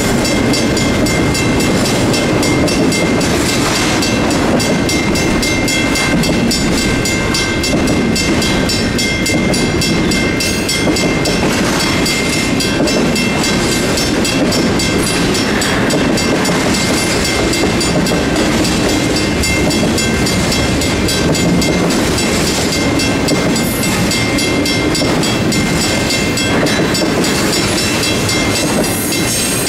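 Union Pacific intermodal freight train rolling past a grade crossing, its wheels clacking and rumbling steadily over the rails. Over it, the crossing's WCH mechanical bell and WCH electronic bell ring on in a fast, even beat, as they do through the whole crossing activation. No horn: it is a quiet zone.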